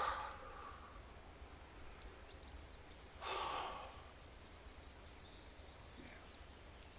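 A man's audible sigh, one long breath about three seconds in, after the fading end of a spoken "whew". Faint birds chirp in the background later on.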